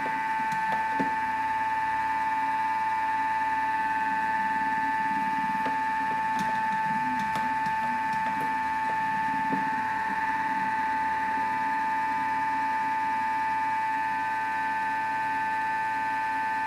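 Countertop food processor's motor running at high speed with a steady whine, whipping frozen mango, raspberries and egg white into a thick gelato-like whip, then cutting off abruptly at the end.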